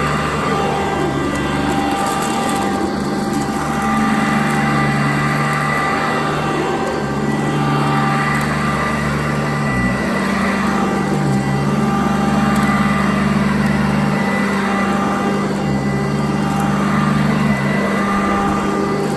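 Sanitaire vacuum cleaner running steadily while vacuuming carpet, a motor whine over a low hum that steps up and down in pitch every few seconds.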